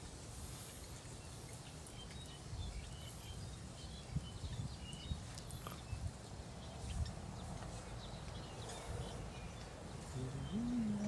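Outdoor field ambience: a steady low rumble of wind on the microphone, scattered short bird chirps and a few soft knocks. Near the end a low, drawn-out call with a steady pitch begins.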